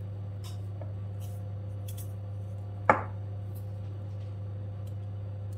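Faint scattered ticks of sesame seeds being sprinkled by hand onto puff pastry on a foil-lined baking tray, over a steady low hum. One sharp knock about three seconds in.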